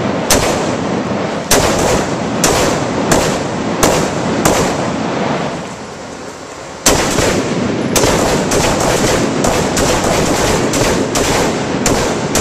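Rapid carbine gunfire from several shooters at once, including a short-barrelled AR-15 with a muzzle brake, the shots overlapping and echoing in an indoor range. A short lull comes near the middle, then the firing picks up to about three shots a second.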